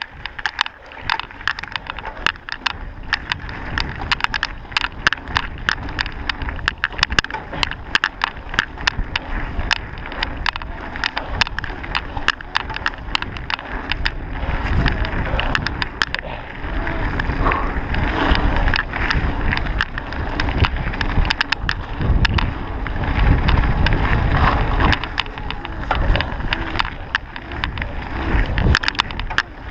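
Mountain bike ridden fast down a rough dirt trail: a dense, rapid rattle of clicks from the bike jolting over the ground. About halfway through, a heavier low rumble of wind on the microphone builds and comes and goes.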